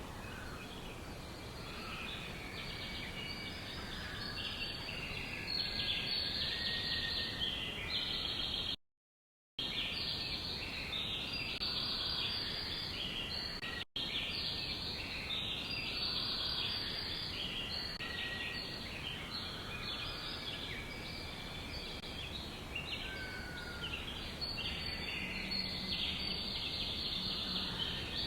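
A dense chorus of many small birds chirping and calling over one another without a break. The sound cuts out for under a second about nine seconds in and again very briefly near fourteen seconds.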